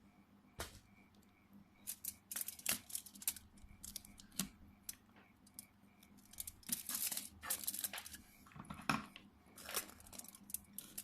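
Irregular clicks, taps and short scraping rustles of small tools and phone parts being handled, a few strokes a second at times, with no steady background.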